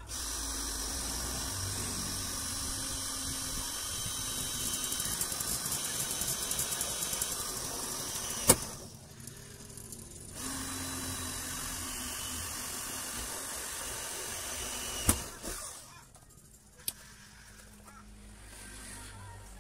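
Cordless drill boring holes through a steel patch plate on a bus body: the motor runs steadily for about eight seconds, stops with a sharp click, then after a short pause runs again for about five seconds and ends with another sharp click.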